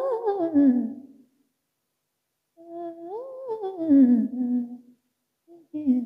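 A woman's voice singing unaccompanied into a handheld microphone: a note sliding down and fading about a second in, then after a short pause a wordless hummed phrase that rises and glides back down, and another starting near the end.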